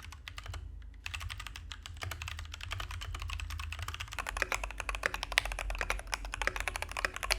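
Fast typing on a stock mechanical keyboard: a dense, continuous run of key clacks, sparse for the first second and then steady.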